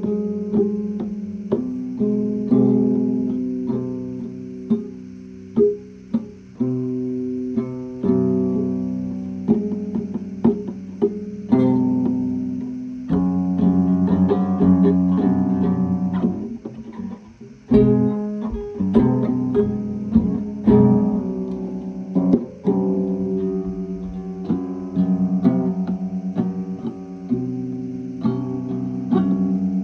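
Background music of plucked guitar, with notes struck and left to ring and fade.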